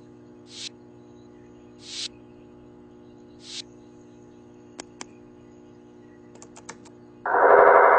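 Three short rising swishes, about a second and a half apart, as photos are swiped across an iPhone touchscreen, over a faint steady hum. Then come a few light clicks. Near the end, loud music starts abruptly.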